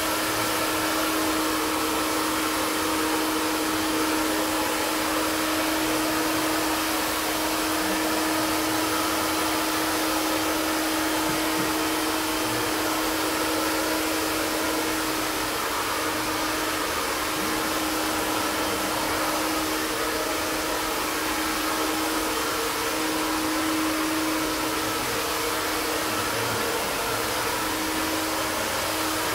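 Prife iTeraCare THz health blower running steadily: a hair-dryer-like rush of fan air with a steady hum under it.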